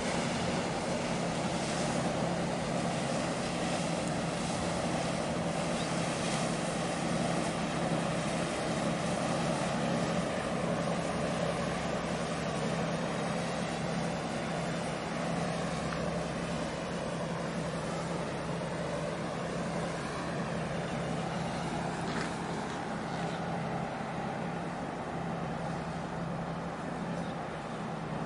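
Steady diesel drone of passing vessels, a constant low hum over a rushing haze of engine noise and water wash, easing off slightly near the end.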